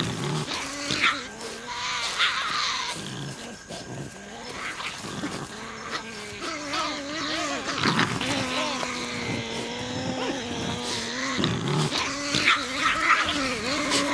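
Tasmanian devils growling and screeching at each other in a contest over a carcass. Wavering pitched calls are broken by sharp snaps, and from about halfway a long wavering call is held almost without a break.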